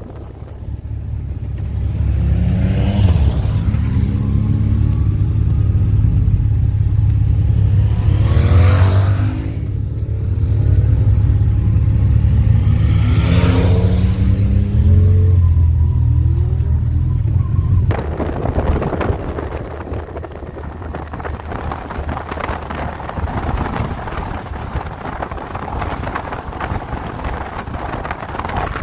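Motorcycle engine running under way, its pitch rising and falling several times with the throttle and gear changes, mixed with rushes of wind on the microphone. About 18 seconds in the engine sound drops away suddenly and a steady rush of wind noise is left.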